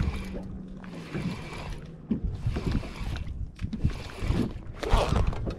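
Wind and water around a drifting boat, with light mechanical clicking from a baitcasting reel as a jig is worked for striped bass. A steady low hum stops about two seconds in.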